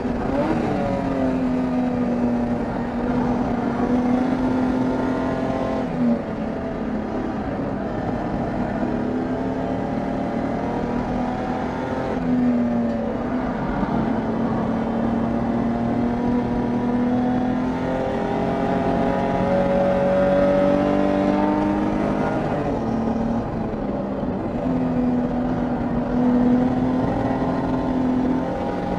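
BMW E30 325is race car's straight-six engine running hard at racing pace. Its note climbs under acceleration and drops sharply at shifts or lifts, about six seconds in, about twelve seconds in and again around twenty-three seconds in.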